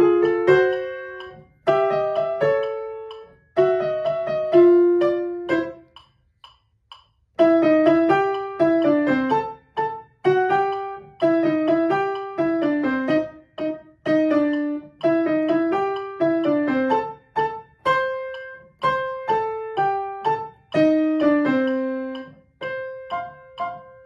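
Grand piano playing the primo part of a ragtime piano duet at a tempo of 126 beats a minute, with a break of about a second and a half around six seconds in.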